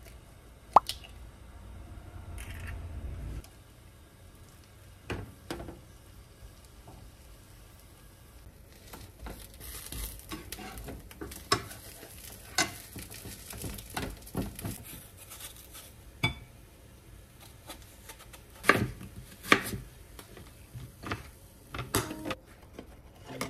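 Kitchen cooking sounds: an egg cracked against a frying pan with one sharp crack under a second in, then a spatula scraping and tapping in the pan, with scattered clicks and light clatters of plates and utensils.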